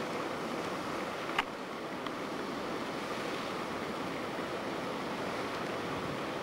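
Steady rushing noise, with one sharp click about a second and a half in.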